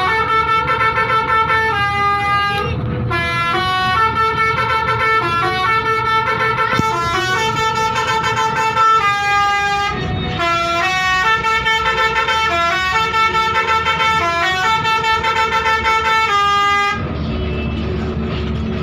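Basuri musical vehicle horn playing a melody as a string of loud, stepped tones. The melody stops near the end, leaving a lower steady rumble.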